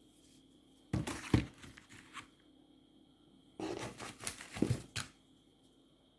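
Fireworks being handled out of a selection box: two bouts of crinkling, rustling packaging with sharp knocks, about a second in and again past the middle.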